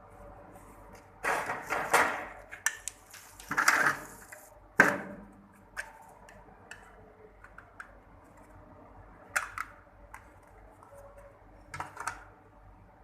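Hard plastic parts being handled: scattered clicks, knocks and short scrapes in a few clusters, the busiest about a second to two seconds in, with a sharp knock near five seconds and a few lighter clicks later.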